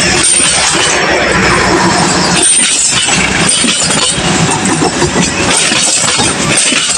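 Passenger coaches of a departing train rolling past close by: a loud, steady rumble of steel wheels on the rails, with metallic clanks and clatter from the running gear over the track.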